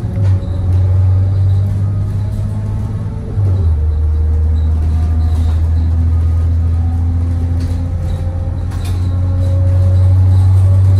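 A Thomas Saf-T-Liner C2 school bus engine and drivetrain is heard from the rear seats inside the cabin as a steady, loud low drone while driving. About three and a half seconds in, the note steps lower and louder, as with a gear change. After that the engine note climbs gradually.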